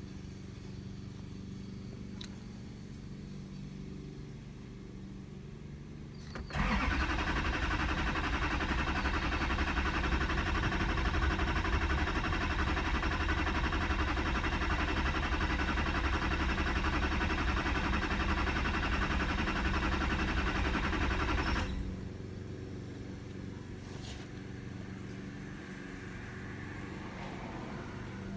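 2008 Chevrolet Duramax LMM 6.6-litre V8 turbodiesel being cranked by its starter for about fifteen seconds without firing, then the cranking stops abruptly. A crank-no-start condition: the owner finds no injector pulse while cranking. A steady low hum sits underneath before and after.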